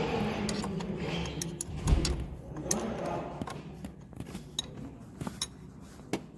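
Metal clicks and clinks of hand tools working on a car engine, with one heavier knock about two seconds in.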